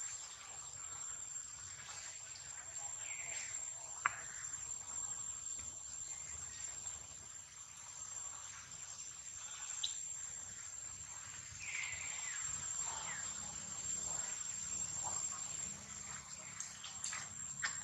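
Steady high-pitched insect drone, with a few faint short chirps and a single sharp click about four seconds in.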